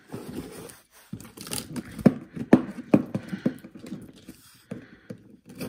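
Box cutter blade slicing through cardboard along a box seam: a run of irregular crunching clicks and scrapes.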